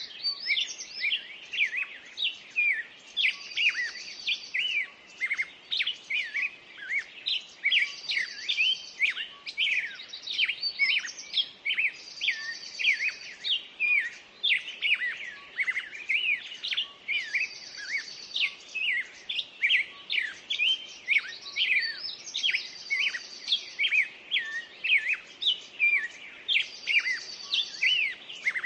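Several songbirds singing at once in a dense chorus: rapid chirps and whistled phrases overlapping without a break, with a short high trill that comes back about every four to five seconds.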